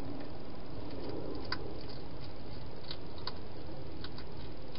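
Wild hedgehog eating from a bowl inside a plastic feeding box: a few sharp, small crunching clicks scattered over a steady hiss.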